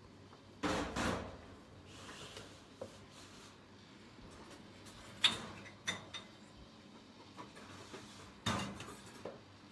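Clatter of dishes: a few separate knocks and clinks of plates and a serving spoon against a plastic bowl of rice, the loudest about a second in and again near the end.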